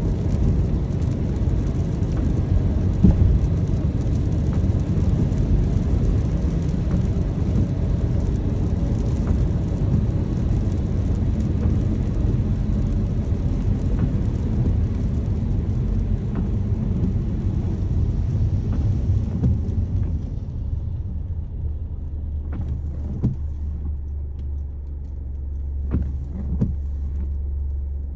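Car driving in the rain: a steady low road rumble under a hiss of rain and tyre spray. The hiss falls away about twenty seconds in, leaving the low rumble and a few light taps.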